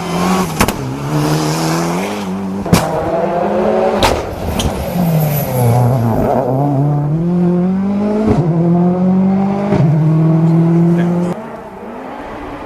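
Rally car engine at full throttle, its pitch rising and falling through gear changes as it brakes and accelerates, with several sharp cracks. The sound drops away sharply near the end.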